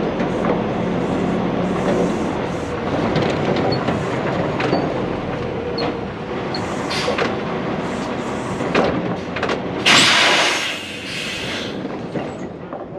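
Heavy vehicle running with a steady rumble and scattered clanks and rattles, and a loud burst of hiss about ten seconds in that lasts about a second and a half.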